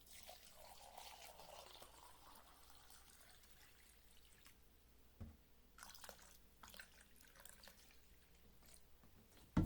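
Ethanol fuel being poured into a small tin-can burner: a faint liquid trickle that fades after about two seconds, followed by a few light clicks and taps.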